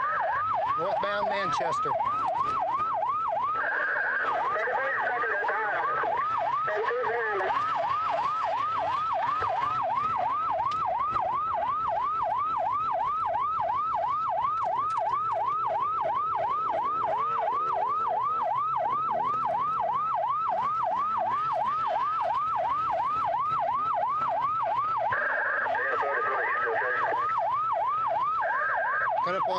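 Police car siren on yelp: fast rising sweeps repeating about three times a second without a break, heard from inside the pursuing patrol car. A higher steady tone breaks in briefly a few times.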